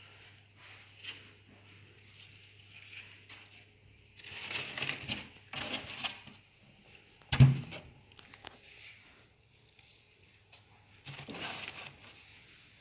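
Tilapia being handled and dropped into a polystyrene foam box: irregular rustling and scraping of wet fish against the foam, in a long bout about four seconds in and another near the end, with one sharp knock a little past seven seconds that is the loudest sound.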